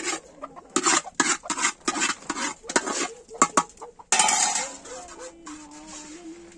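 Metal spoon scraping and clanking against aluminium pots as rice is spooned from one pot into another, a quick run of sharp clinks and knocks. About four seconds in, a sudden rush of hiss fades away over about a second.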